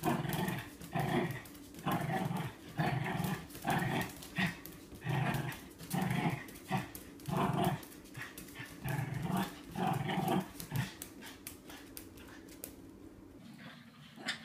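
Small dog growling in short repeated bursts, about one and a half a second, while it spins chasing its tail, with light clicking in between. The growls stop about eleven seconds in.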